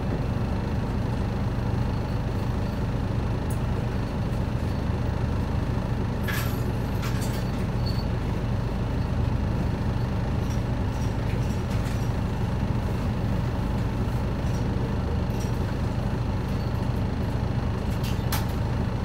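Isuzu Erga city bus's diesel engine idling steadily while the bus stands still, heard from inside the passenger cabin, with a few light clicks.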